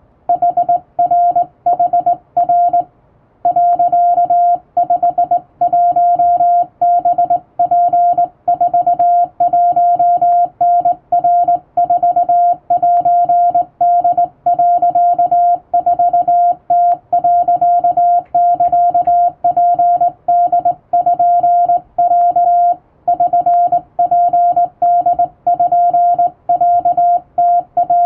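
Japanese wabun Morse code sent by hand on a vertical straight key, heard as a steady mid-pitched beep keyed on and off in dots and dashes, with a short pause about three seconds in.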